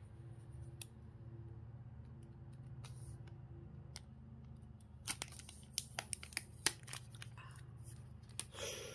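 Thin plastic protective film being peeled off the back of a new smartphone. It crackles faintly at first, then gives a run of sharp snaps and crinkles about halfway through, over a faint steady low hum.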